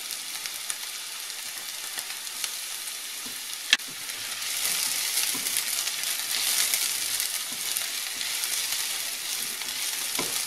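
Diced onion and freshly pressed garlic sizzling in hot olive oil in a frying pan, stirred with a silicone spatula. A single sharp knock comes a little under four seconds in, and the sizzle grows louder after it.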